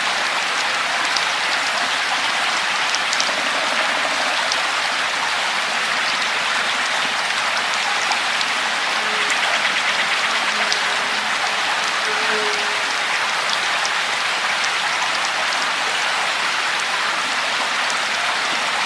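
Steady rain falling, a constant hiss of water with scattered individual drop ticks.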